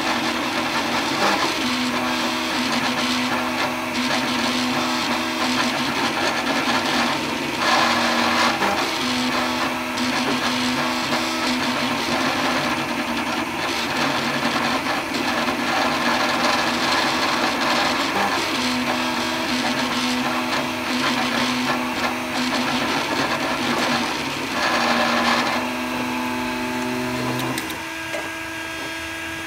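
3D printer's stepper motors whining as they move the print head and bed, in tones that keep changing pitch with each move, over the steady rush of its cooling fans. About two seconds before the end the moving stops and a quieter, steady hum remains.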